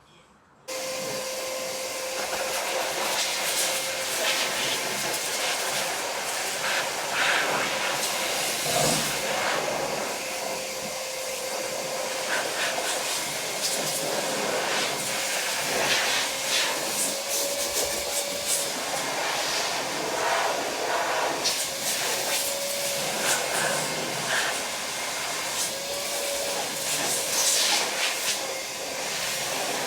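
Shop vacuum blowing sanding dust off a freshly sanded wooden tabletop, switched on about a second in: a steady rush of air with a constant motor whine.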